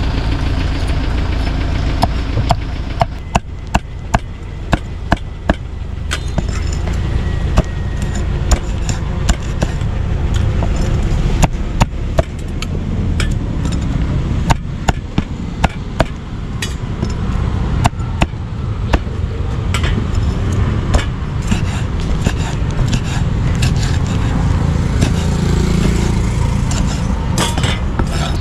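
Cleaver chopping grilled pork: a run of sharp knocks, at times about two a second, over a steady rumble of street traffic.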